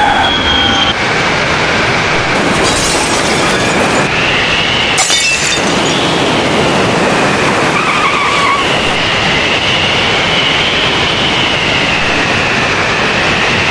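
Loud, continuous rumbling roar of a storm-and-flood disaster soundscape, with a high wavering whistle drifting over it. Brief surges of hiss come about two and a half and five seconds in.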